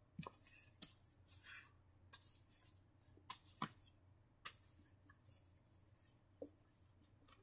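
Faint handling noise from hands moving plush toys around: a few scattered soft knocks and clicks with brief rustling, mostly in the first half.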